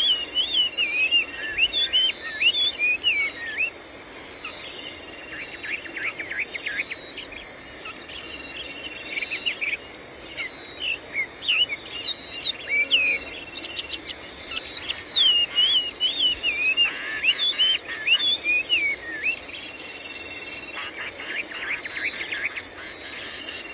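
Sooty-headed bulbuls chirping in quick runs of short whistled notes, in several bouts, over a steady high-pitched drone of insects.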